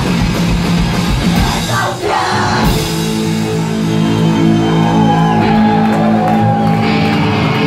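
Live hardcore punk band playing loud, with distorted electric guitars, drums and shouted vocals in a large hall. About three seconds in the dense playing breaks off and a held guitar chord rings on steadily.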